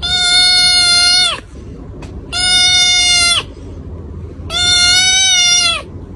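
An animal calling three times, each a long, loud, steady high-pitched call of about a second that drops in pitch as it ends.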